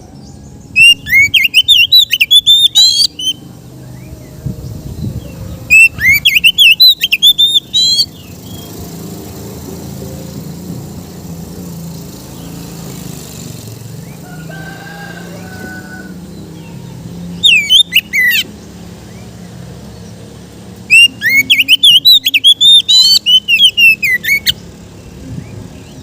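Oriental magpie-robin (kacer) singing in four loud bursts of rapid, varied whistled phrases, with pauses between, over a low steady background hum.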